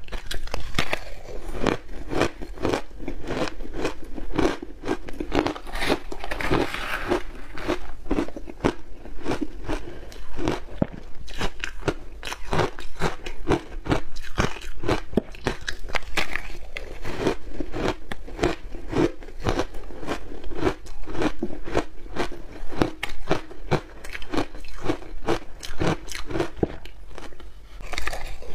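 Shaved ice mixed with milk powder being bitten and chewed close to a clip-on microphone: a dense, unbroken run of crisp crunching bites, many crunches a second.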